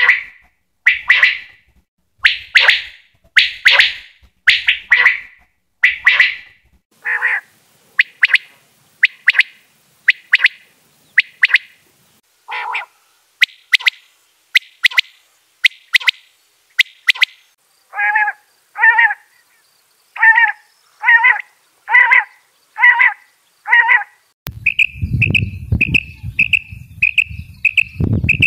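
A series of short animal calls, roughly one a second, each separated by silence. About two-thirds of the way through they turn lower and rougher, and near the end they give way to a faster run of short high notes over a low rumble.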